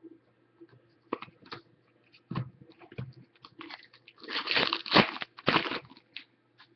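Hockey cards and their pack wrapper being handled: scattered clicks and rustles, with a louder stretch of crinkling from about four seconds in until nearly six.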